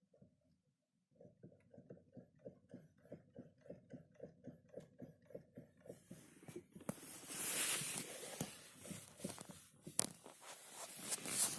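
Knocking in a 2015 Nissan Leaf's steering as the wheel is rocked back and forth around the centre, about four knocks a second: a fault that shows only near the centre point, not with the wheel turned. From about six seconds in, a louder rustling noise with sharp clicks takes over.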